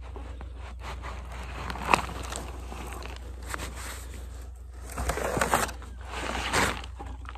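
Scraping and rustling of a black plastic nursery pot being handled and pulled off a young apple tree's wet root ball. There is a sharp click about two seconds in and two louder scraping stretches near the end as the pot comes free.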